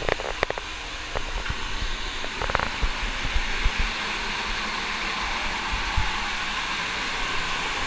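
Steady rush and hiss of seawater moving in a sea cave, with a few sharp knocks in the first three seconds.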